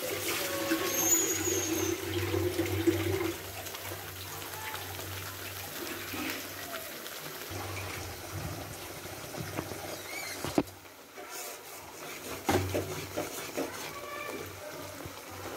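Thin spice paste bubbling and sizzling in a karai as it is stirred with a spatula, cooking down after water was added. A sharp knock about ten seconds in, and another about two seconds later.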